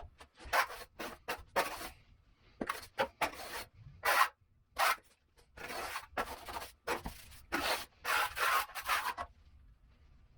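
Steel finishing trowel scraping over wet mortar in a series of short, irregular strokes, skimming and smoothing the top of a shower curb.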